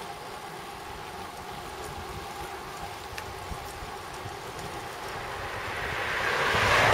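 Steady wind and road noise from a bicycle coasting downhill. An oncoming car passes close by: it grows louder over the last two seconds and peaks at the end.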